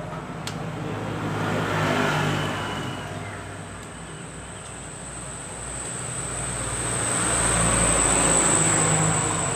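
Motor vehicle engine noise that swells about two seconds in, eases off, then builds again to its loudest near the end, with a steady thin high whine above it.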